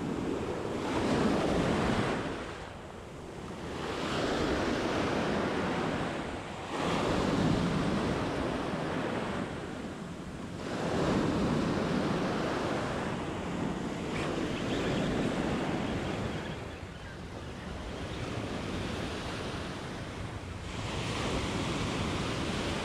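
Ocean surf breaking on a sandy beach and washing up the shore, rising and falling in surges every few seconds.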